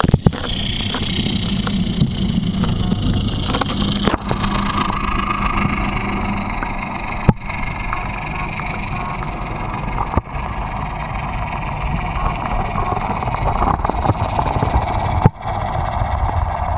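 Hot-tub jets running: a steady churning of water and air bubbles, heard with the microphone under water. There is a low hum for the first six seconds or so, and a few sharp knocks.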